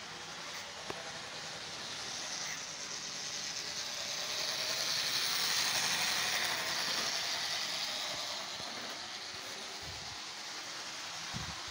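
Model train running on the layout's track: a steady whir of motor and wheels on the rails that swells louder around the middle as the locomotive passes close by, then fades. A small click about a second in and a short low thump near the end.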